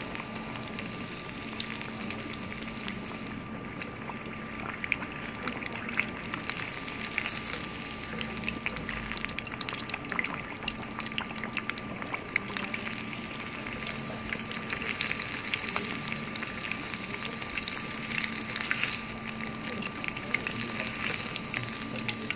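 Breaded chicken cutlet deep-frying in oil at about 170 °C: a steady, dense crackle and sizzle of bubbling oil.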